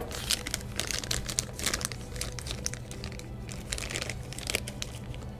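Clear plastic bag crinkling and crackling irregularly as hands unwrap a dial caliper from it.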